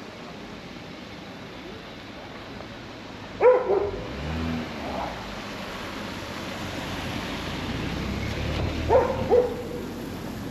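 A dog barking: two quick double barks, about three and a half seconds in and again near nine seconds, over steady street ambience with a low rumble between them.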